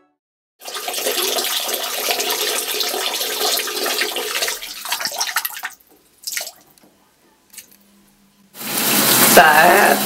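Water running for about five seconds, then two brief splashes. Near the end a shower spray starts, with a voice over it.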